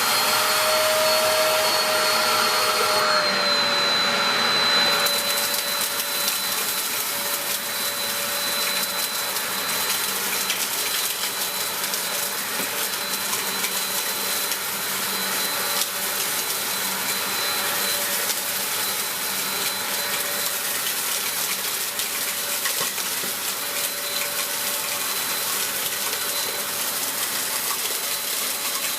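Dyson DC03 upright vacuum cleaner running, just switched on: its motor whine reaches full speed at the start, dips slightly in pitch about three to four seconds in, then holds steady with scattered faint ticks.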